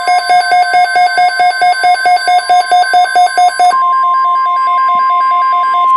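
Weather radio alert: a rapid electronic beeping alarm, about six beeps a second over a steady tone. About two-thirds of the way through, a loud steady NOAA Weather Radio warning alarm tone takes over, with fainter beeps still pulsing beneath it, signalling an incoming watch message.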